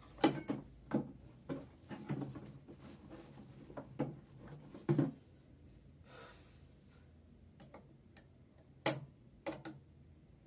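Small clicks and knocks of sewing machine parts being handled, several in quick succession in the first five seconds and a couple more near the end.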